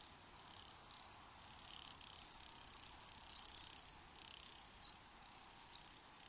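Faint cricket chirring that swells and fades in patches every second or so, over a soft steady hiss.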